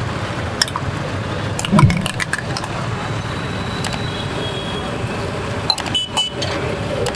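Steel ladle and spoon clinking against steel pots, cups and a dosa griddle in a series of light clicks, with one louder thump about two seconds in, over a steady street-stall background hum.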